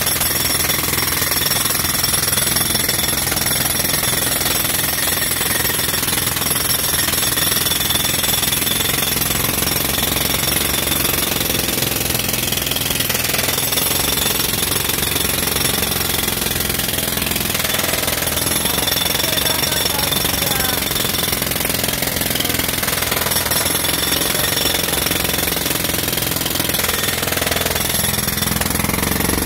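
Pneumatic jackhammer hammering continuously into a concrete sidewalk slab, breaking it up. It runs as one loud rapid chatter at a steady level with no pause.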